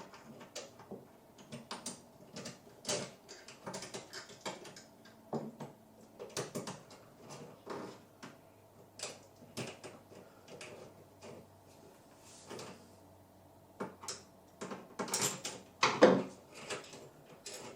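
Irregular clicks and light knocks of a light fixture's metal mounting bracket and screws being handled and fitted to an electrical box, with a louder clatter near the end.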